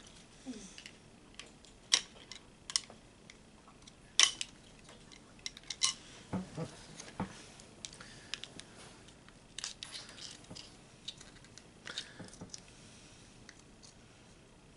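Small metal parts and hand tools clicking and clinking irregularly while a throttle body is taken apart, with the sharpest clicks about two and four seconds in.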